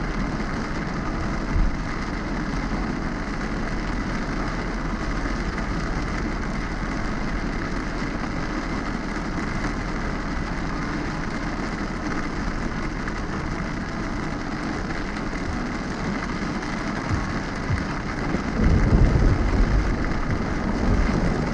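Heavy rain falling on a car's windscreen and body as the car drives along a wet road, a steady rushing hiss with the car's running noise beneath it. Near the end, a deep low rumble swells for about two seconds.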